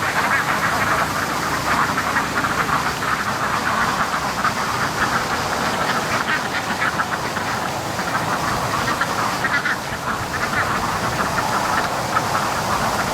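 A flock of domestic ducks quacking continuously, many calls overlapping, over the low rumble of strong wind on the microphone.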